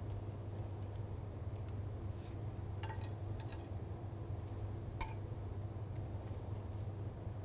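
A few light clinks of a metal spatula against a ceramic serving board, about three seconds in and a sharper one about five seconds in, over a steady low hum.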